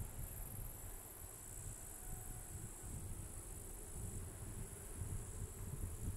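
Insects chirring in a continuous high-pitched drone, with an uneven low rumble underneath.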